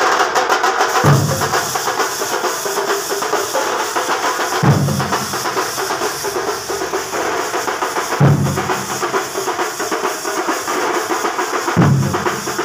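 A procession drum troupe playing fast, rolling drumming, with a heavy low beat about every three and a half seconds.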